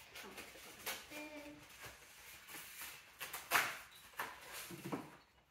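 Packaging being handled and unwrapped by hand: irregular rustling and crinkling with short sharp crackles, the loudest about three and a half seconds in.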